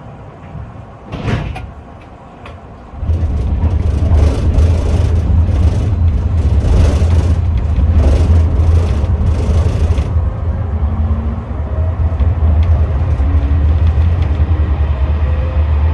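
Tram at a stop, a short clunk just over a second in, then the tram pulls away: from about three seconds a loud low rumble of the running gear, with a faint rising whine of the traction motors later on as it gathers speed.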